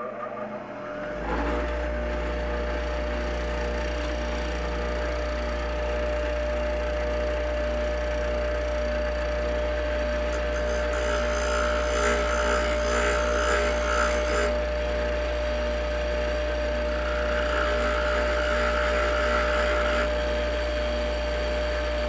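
Bench grinder coming up to speed in the first second, then running with a steady hum. A bolt held in locking pliers is ground against the stone wheel twice: about ten seconds in for four seconds, and again about seventeen seconds in for three seconds. The grinding takes one side off the flange of an intake manifold bolt.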